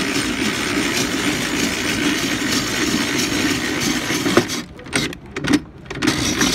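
Ice-shaving machine grinding a block of ice into shaved ice: a steady rough grating over a low hum. At about four seconds a sharp click comes, and the grinding then goes on in short spurts.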